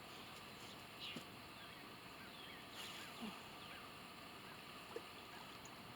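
Faint outdoor background hiss, with a few soft, brief sounds about a second in, around three seconds in and near five seconds in.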